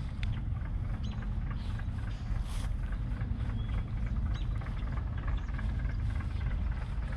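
Fishing boat engine running as a steady low drone, with a few short bird chirps over it.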